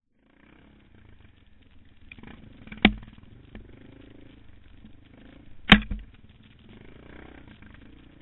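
Motorcycle engine running low and steady, broken by two sharp knocks about three seconds apart.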